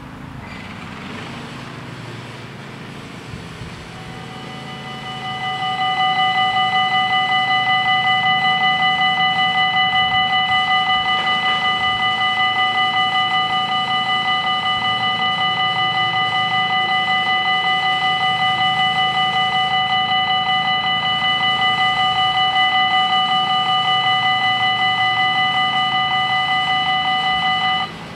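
Level crossing warning bells starting to ring about four seconds in, a fast, steady electric ringing that swells to full loudness within two seconds. The ringing cuts off suddenly near the end, once the barriers are down.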